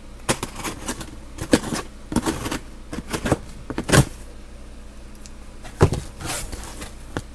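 A cardboard shipping box being opened and unpacked by hand: irregular rustles, scrapes and knocks, the loudest about four seconds in and again near six seconds.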